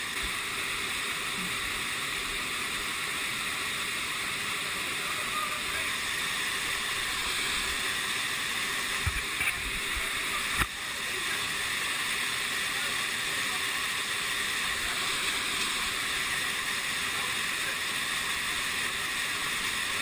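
A mountain stream rushing steadily down a rocky gorge in small waterfalls, with one sharp knock about halfway through.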